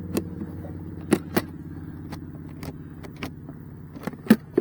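A steady low engine hum with a string of sharp clicks and knocks over it, growing more frequent near the end.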